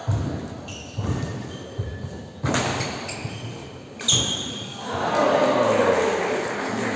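Badminton rally: about five sharp racket strikes on the shuttlecock, echoing in a large hall, with short squeaks of shoes on the wooden court. After the last strike, about four seconds in, the rally ends and crowd noise swells.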